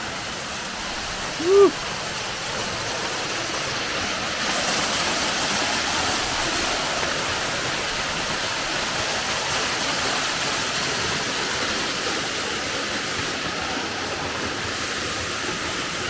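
Waterfall pouring into a rock pool, a steady rush of falling water that swells slightly about four seconds in. One brief vocal sound about a second and a half in.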